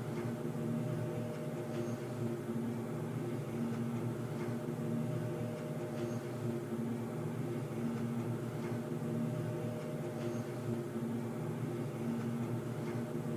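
Underground ambience: a steady low droning hum made of several held tones, swelling and fading in a slow cycle, with faint occasional ticks.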